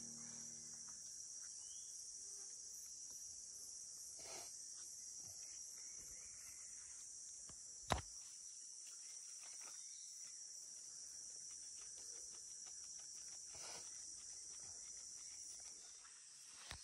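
Rainforest insect chorus, a steady high-pitched buzzing that runs on without a break. One sharp click about eight seconds in, the loudest sound, with a couple of fainter knocks at other points.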